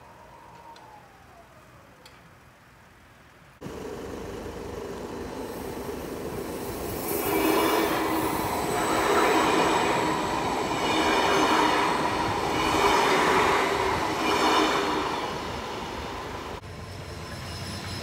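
A double-deck electric regional train passes over a level crossing close by, loudest in the middle, with the noise swelling and easing as each car goes by. Before it, a faint tone falls in pitch as a crossing barrier arm finishes lowering, and near the end the sound drops back to a quieter scene.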